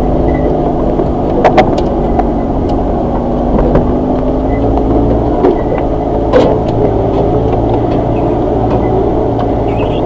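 Suzuki Jimny 4x4's engine running steadily as it crawls along a rough forest dirt track. A few sharp knocks and rattles come through now and then.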